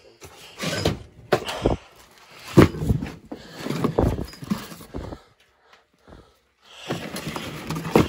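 Irregular knocks and clunks of tools and pipe fittings being handled and set down, for about five seconds, then a short pause before more handling noise near the end.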